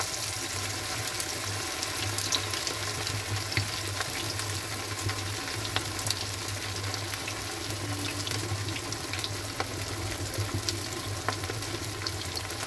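Masala-marinated, egg-and-flour-coated chicken drumsticks deep-frying in hot oil in a kadhai: a steady sizzle scattered with small pops and crackles. A steady low hum runs underneath.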